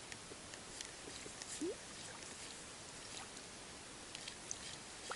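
Faint outdoor quiet on calm water: a soft even hiss with scattered light clicks and one short rising squeak about a second and a half in.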